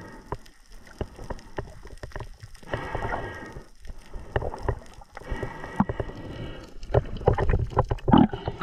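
Muffled underwater sound through a camera housing: irregular knocks, clicks and water rush as a diver hauls a speared dogtooth tuna up the line, growing louder and busier near the end. A droning tone comes and goes a few times.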